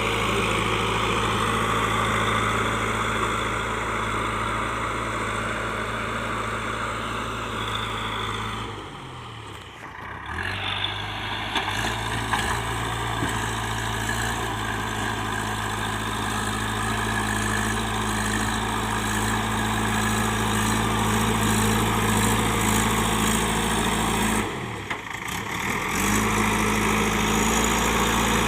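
Diesel engine of a JCB 3DX backhoe loader running at a steady speed, with two short dips where the sound drops away and comes back, about nine seconds in and about three-quarters of the way through.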